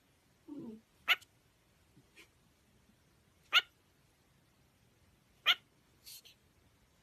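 A small pet making short, high-pitched squeaks, three of them about two seconds apart.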